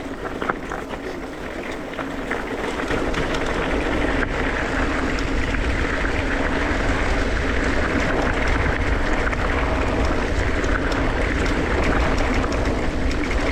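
Wind rumbling on the microphone and trail noise with scattered rattling clicks from a mountain bike riding singletrack, growing louder about four seconds in as speed picks up.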